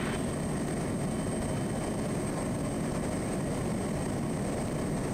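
Quest Kodiak 100's turboprop engine and propeller running steadily, heard inside the cockpit as an even, unchanging noise with a thin, steady high tone above it.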